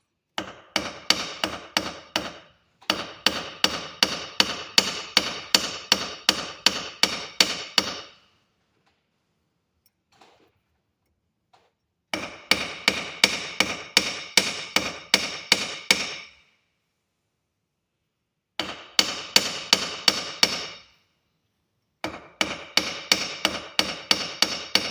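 A hammer striking metal in five runs of steady blows, about three a second with short pauses between, each blow ringing: copper jewelry wire being hammered flat on a metal block.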